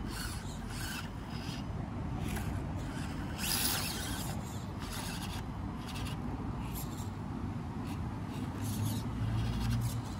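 Stock Axial SCX24 crawler's small brushed motor and gear train whining, starting and stopping with the throttle as the truck crawls up rock, tyres scraping on stone.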